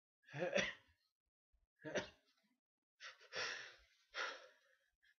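A person sneezing and drawing sharp breaths: four breathy bursts, the loudest about half a second in, a short sharp one near two seconds, then two more close together near the end.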